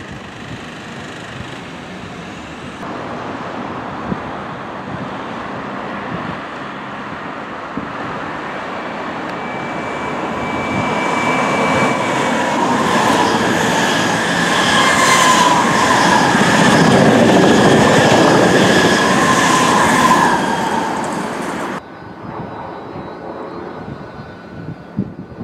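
A Z 20500 double-deck electric multiple unit approaching and passing, its wheels rumbling on the rails and growing steadily louder. A few high whining tones wander over the rumble. The sound cuts off suddenly about four seconds before the end, and a quieter, more distant train sound follows.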